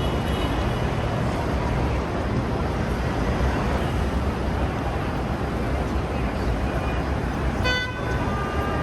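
Steady city street traffic noise, with a short car horn toot near the end.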